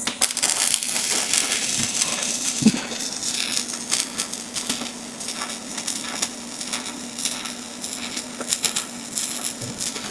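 Robotic arc welding: the welding arc crackling and spitting continuously from the moment it strikes, with a faint steady hum underneath.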